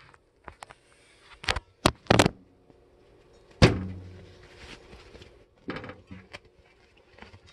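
Several sharp clicks and knocks, then one loud thump about three and a half seconds in, with a low ringing that fades after it, then a few softer knocks.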